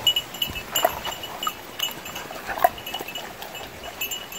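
Labrador retriever whining in a few short, high cries about a second apart.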